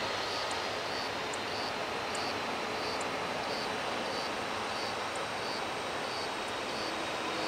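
FedEx McDonnell Douglas MD-11 trijet taxiing, its three jet engines giving a steady, even rumble and hiss at taxi power. A faint, regular high ticking runs through it.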